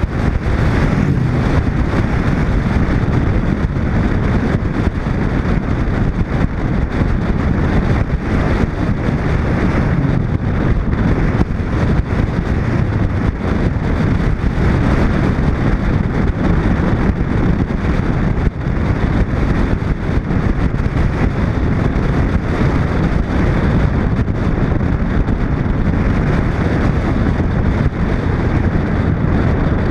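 Wind buffeting a camera mounted on the outside of a 1941 Chevrolet, over the car's engine and tyre noise as it drives along at a steady road speed.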